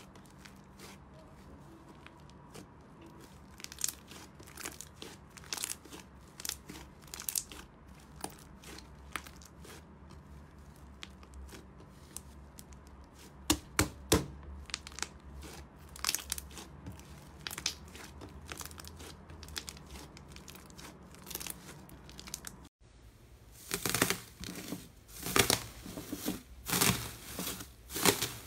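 Hands pressing and stretching thick white slime, giving many small sticky crackles and pops. About 23 seconds in it changes to louder, denser crinkling as hands knead red slime covered in gold foil leaf.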